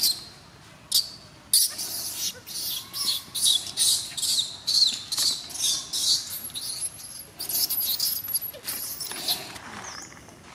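Baby macaque squealing in a run of short, high-pitched squeaks, about two a second.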